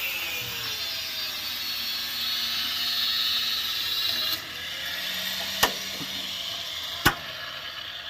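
Steady hissing tool noise that cuts off suddenly about four and a half seconds in. Then two sharp knocks on metal about a second and a half apart, the second the louder, typical of hammer work on the excavator bucket's teeth.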